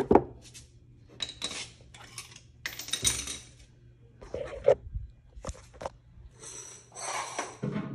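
Steel hand tools, a 5/8 wrench and locking pliers, clinking and knocking against each other and the metal mower deck: a string of separate sharp clinks, with a longer scraping rustle near the end.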